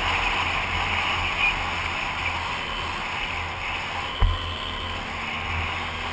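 Quad bike riding along, heard through a helmet camera: wind rush over a muffled engine drone that eases off slightly, with one short thump about four seconds in.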